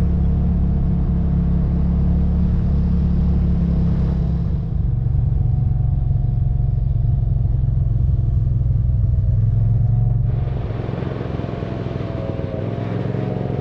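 Side-by-side UTV engine running steadily as the machine drives along a dirt trail, a low rumble with road noise; the engine note shifts about a third of the way in and again about two-thirds in.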